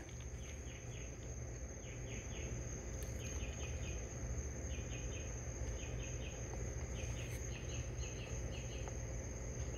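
Night insects such as crickets chirping: short chirps in quick groups of three or four, repeating every half second or so, over a steady high-pitched trill and a faint low hum.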